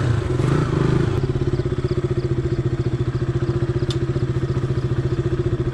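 Motorcycle engine running at low, steady revs with an even pulsing beat while the bike rolls slowly along a dirt track; the pitch shifts briefly in the first second, then holds.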